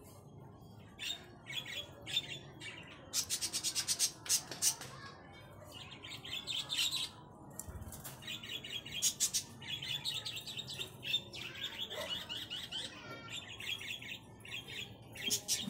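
Budgerigars chattering: irregular runs of quick, high chirps, busiest through the middle.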